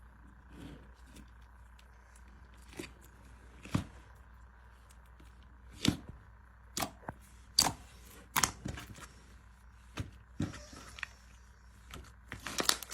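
Slime being played with by hand, giving scattered sharp pops and clicks at irregular intervals, several louder ones in the middle.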